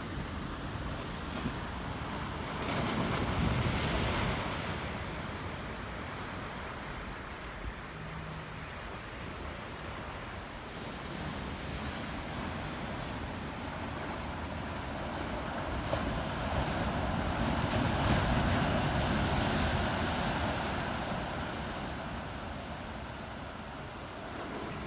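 Ocean surf washing in, with wind on the microphone. The surf swells louder twice, about three seconds in and again for several seconds past the midpoint.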